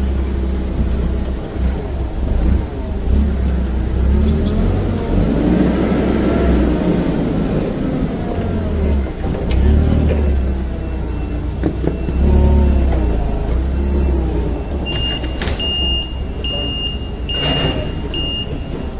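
STILL forklift running and maneuvering, its drive and hydraulics giving a whine that rises and falls over a steady low rumble. Near the end a high beeper sounds about five times in a row, with a single clank among the beeps.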